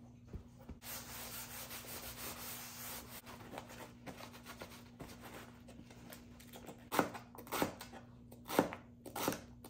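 Paper towel rustling and rubbing against celery stalks for a couple of seconds, then a chef's knife chopping celery on a plastic cutting board: about five sharp knocks in the last few seconds.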